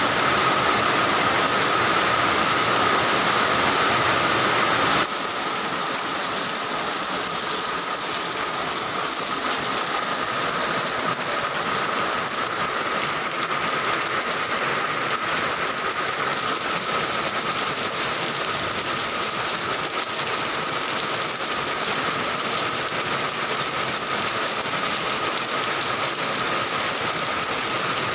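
Heavy rain falling in a steady, dense hiss. About five seconds in, the sound changes abruptly to a slightly quieter, thinner rain.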